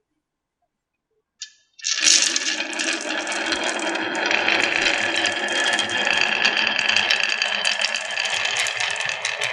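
Silent at first, then a single click, and about two seconds in a crowd of marbles starts rolling and clattering down a wooden HABA marble run, a dense continuous rattle of clicks.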